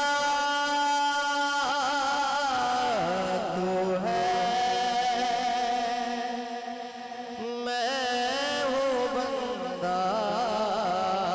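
A man singing a naat into a microphone over a PA, drawing out long held notes that waver and bend in pitch, with a short breath-like dip about seven seconds in.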